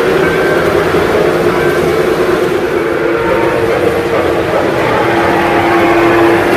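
Lionel O-scale model trains running on three-rail track: a steady rumble of wheels and motors with a constant hum.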